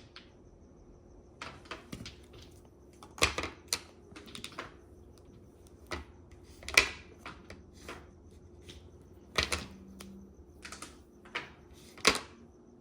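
Mahjong tiles clicking and clacking against each other and the table as they are handled, in irregular single clicks and short clusters.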